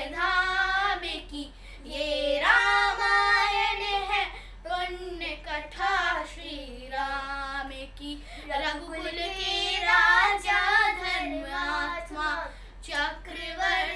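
Children singing a melody together without instruments, with long held notes that glide up and down.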